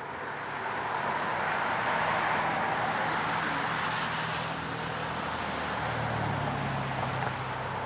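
A passing vehicle: a steady rush of road noise with a low hum beneath it, swelling over the first second or two and easing off near the end.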